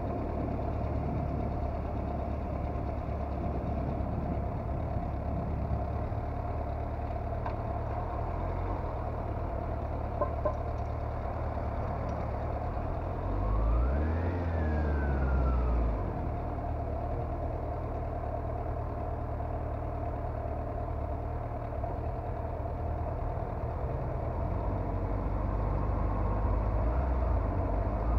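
Motorcycle engine running at low, steady revs. About halfway through the revs briefly rise and fall, and near the end they climb again as it accelerates.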